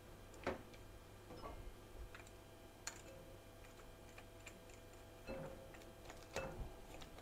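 Wire whisk knocking and scraping against a glass mixing bowl while batter is whisked by hand: faint, irregular clicks a second or so apart, over a faint steady hum.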